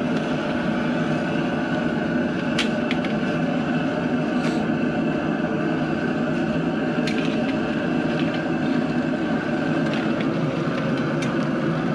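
Outdoor propane burner under a large aluminium boil pot, burning with a steady rushing noise over the rolling boil. A few light knocks and clicks come as the crabs go into the basket and a paddle works in the pot.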